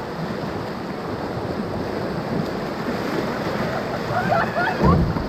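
Whitewater of the Ocoee River rushing steadily around a raft. There is a short low blast of wind on the microphone near the end.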